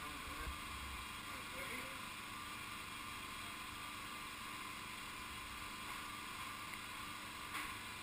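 Steady low hiss of background noise, with one short knock near the end.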